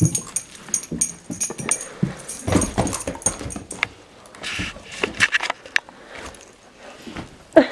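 Siberian husky vocalizing in short bursts while playing, amid rustling and small knocks from handling. The loudest call comes near the end.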